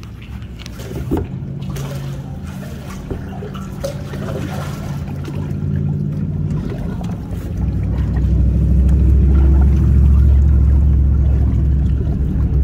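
Water trickling and sloshing around a kayak as it is paddled, under a steady low rumble that grows louder about halfway through.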